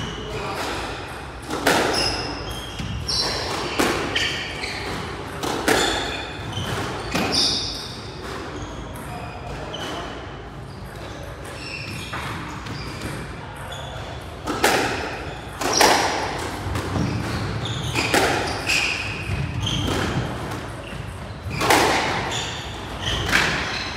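Squash rally: the ball is struck by racquets and smacks off the walls and glass, sharp echoing hits about every one to two seconds, with short high squeaks of shoes on the court floor between them.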